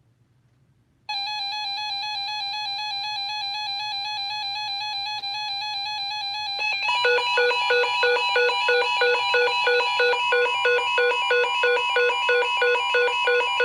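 Electronic weather-radio alert tones announcing an incoming warning. A steady buzzy tone starts about a second in, then about halfway through gives way to rapid beeps alternating in pitch, about three a second.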